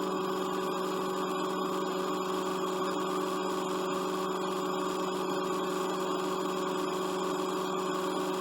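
A steady, unchanging mechanical hum at a constant pitch, like an engine running at a fixed speed.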